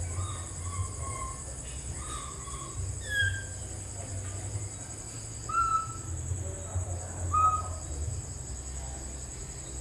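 A baby monkey gives about six short, high coos and squeaks, some gliding up or down in pitch. A steady high insect-like drone runs underneath.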